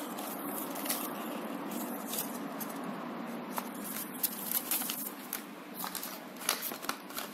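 Soft handling noises of a paper booklet being moved and set down on a table: scattered light rustles and taps over a steady faint hiss.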